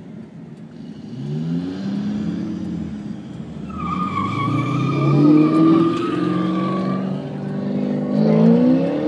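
2010 Ford Mustang GT's V8 exhaust under hard acceleration from a standing start, revs climbing and dropping through several gear changes. A steady high whine sits over the engine for a few seconds in the middle of the run.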